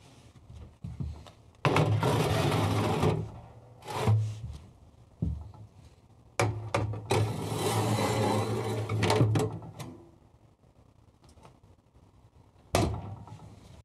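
A metal baking tray and then a wire grill rack being slid into the oven of a wood-fired kitchen range, scraping and clattering on the oven runners, the first slide about two seconds in and a longer one about six seconds in. A few sharp metal knocks in between and near the end.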